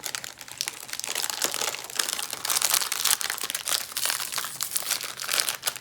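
Snack packet wrapper crinkling rapidly as it is handled and opened, getting busier about two seconds in.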